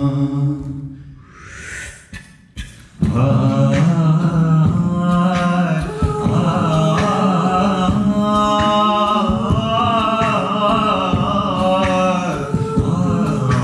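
A cappella ensemble singing through microphones: a held chord fades away, a short near-silent break with a few clicks follows, and about three seconds in the full group comes back in with layered voices over a vocal-percussion beat.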